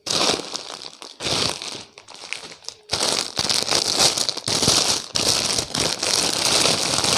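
Plastic packaging crinkling and rustling as a courier mailer bag is opened and a dress sealed in a clear plastic bag is handled. It comes in bursts for the first few seconds, then runs on almost without a break.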